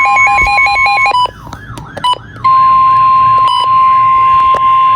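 Electronic emergency alert tones. For about the first second there is fast pulsing beeping, about six a second, over a steady tone, then a repeating warbling sweep. From about two and a half seconds in, a loud steady tone of about 1 kHz holds: the NOAA Weather Radio warning alarm tone that comes before a severe thunderstorm warning.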